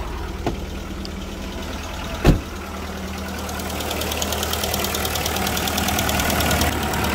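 Audi A2's four-cylinder petrol engine idling steadily. A car door shuts with one loud thump a little over two seconds in. After that the engine's light, rapid ticking grows louder.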